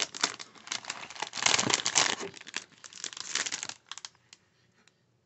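Packaging of a Bandai Pikachu model kit crinkling and rustling as its contents are handled; the rustling thins out and stops about a second before the end.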